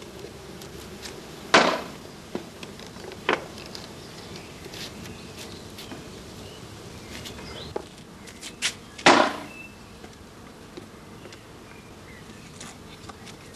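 Honeybees buzzing steadily as a massed swarm, broken by a few sharp knocks, the loudest about a second and a half in and about nine seconds in.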